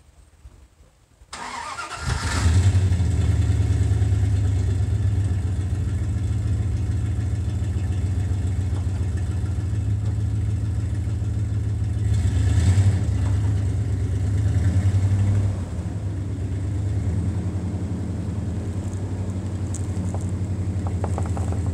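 Pickup truck engine starting about a second in, then running steadily and revving up around the middle as it pulls an old car on a tow rope.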